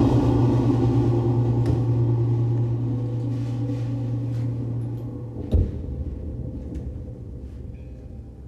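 A low, steady tone that fades slowly, with one sharp knock a little past halfway and a few faint clicks.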